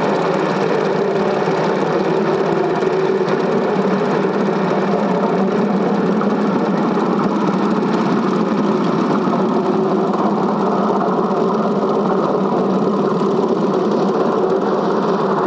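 Film projector running steadily, its motor and rapid shutter clatter giving an even mechanical whir. It is the sound of the old cine film being played back for transfer, not of the train on screen.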